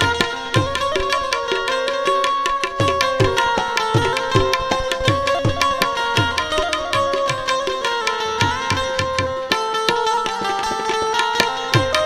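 Instrumental interlude of a Gujarati bhajan: a harmonium plays the melody in held, stepping notes over tabla keeping a fast rhythm, the bass drum giving low strokes that fall in pitch.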